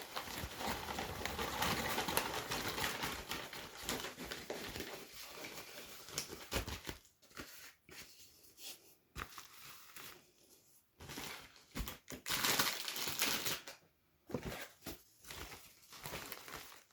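Packaging being handled: crinkling and rustling, continuous for the first several seconds, then on and off with small clicks and taps and a louder rustle near the end.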